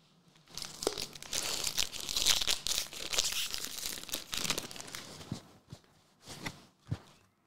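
Foil wrapper of an Upper Deck Marvel Platinum trading-card pack crinkling and tearing as it is opened by hand: a dense crackling rustle for several seconds, then a few separate sharper crackles near the end.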